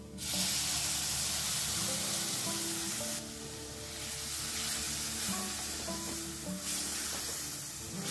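Liquid paste hitting a hot steel kadai of frying grated fresh turmeric, setting off a loud sizzle just after the start, then sizzling on, somewhat quieter after about three seconds, as a wooden spatula stirs the mix.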